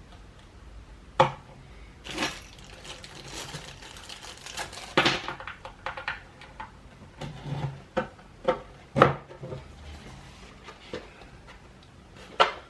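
Skateboard mounting screws and deck being handled: a run of sharp clicks and knocks of small hard parts against the wooden deck, with a stretch of scraping and rattling between the clicks.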